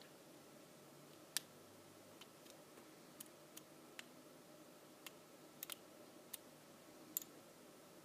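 Faint, irregular sharp clicks of a metal lock pick working in the keyway of a Master Lock 410 lockout padlock held under a tension wrench, about a dozen in all. The loudest click comes about a second and a half in, and another near the end.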